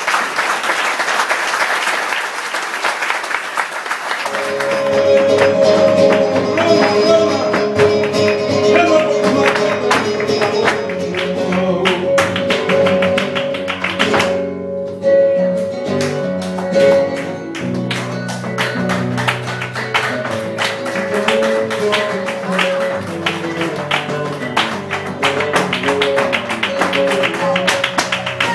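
Live flamenco: applause for about the first four seconds, then a Spanish guitar starts playing with rhythmic hand-clapping (palmas) and sharp heel-and-toe footwork taps (zapateado) from the dancer.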